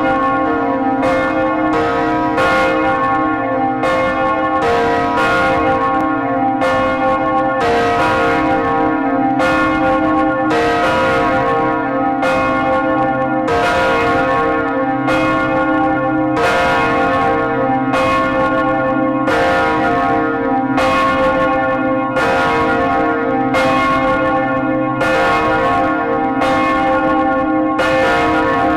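Large bronze swinging church bells ringing as a funeral toll. Clapper strikes come about once or twice a second, and their ringing overlaps into a continuous hum.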